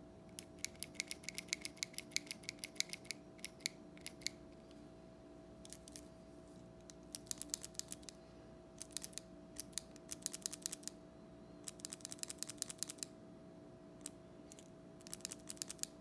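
Red Uni Kuru Toga Advanced mechanical pencil clicking in quick runs of sharp, crisp clicks, several bursts of one to three seconds with short pauses between.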